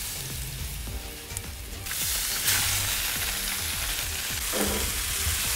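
Pieces of snook sizzling in hot avocado oil in a large cast-iron skillet, a steady crackling hiss that grows louder about two seconds in.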